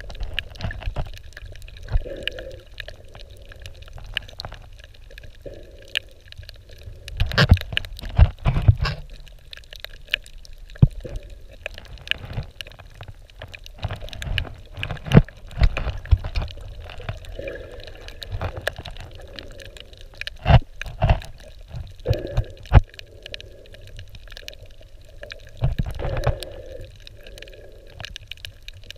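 Muffled underwater sound picked up by a camera held in shallow water: a low, uneven sloshing rumble with many irregular clicks and knocks.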